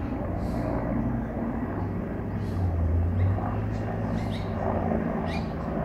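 Bell 412EP twin-turbine helicopter flying past at a distance, a steady low drone of rotor and engines.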